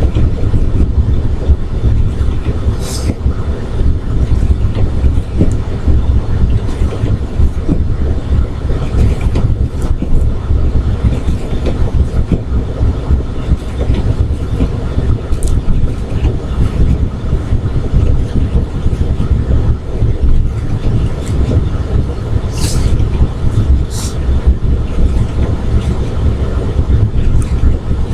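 Steady low rumble of a car's tyres and engine heard inside the cabin while driving on a snowy road, with a few brief faint hisses.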